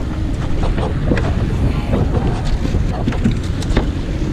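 Wind buffeting the microphone over the steady running of a boat's twin outboard motors and its wake, with a few scattered knocks and taps.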